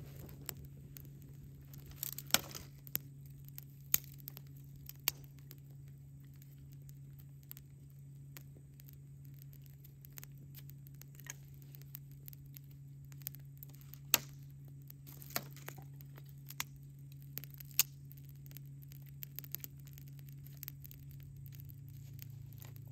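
Small campfire of dry twigs crackling, with sharp irregular snaps and pops over a steady low hum.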